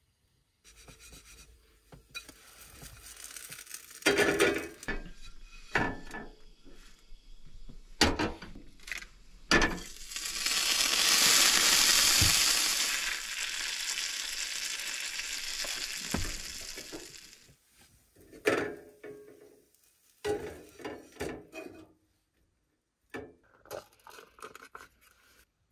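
Utensils clinking and scraping as pancake batter is stirred in a bowl. About ten seconds in, batter goes into a hot pan and sizzles, loudest at first, then holding steady for several seconds before it stops. More scattered clatter of utensils near the end.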